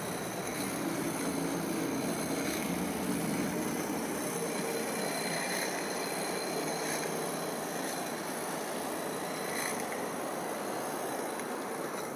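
Small G-scale live-steam tram, spirit-fired with a single oscillating cylinder geared down eight to one, running slowly with a train of coaches. It makes a steady running noise from the engine and the wheels on the rails.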